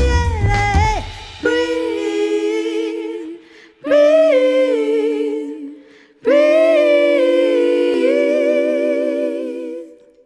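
Layered vocal harmonies singing wordless held chords a cappella as a song ends: the backing instruments drop out about a second in, then three swelling chords follow, the last held longest and fading out near the end.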